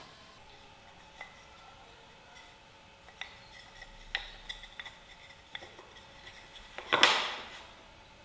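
Thin pine strips clicking and knocking against each other as they are handled, with a louder clatter about seven seconds in.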